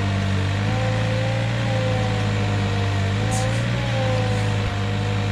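An engine running steadily with a constant low hum, with a higher whine that wavers slowly up and down above it.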